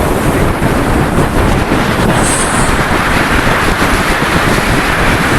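Speedboat under way at speed, with wind buffeting the microphone loudly over the rush of the boat and water.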